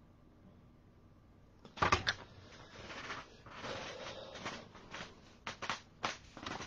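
Objects being handled on a work table: a sharp knock about two seconds in, then rustling and scraping, then a few quick clicks near the end.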